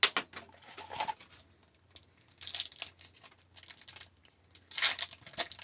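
Hobby-box trading-card pack wrapper crinkling and being torn open by hand. The sound comes in two short rustling spells, with a couple of light taps from handling the cards before them.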